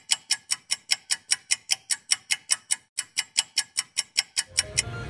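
Intro sound effect of sharp, high clock-like ticks, about five a second, with a brief pause about three seconds in. The ticks stop near the end as a low, steady background noise comes in.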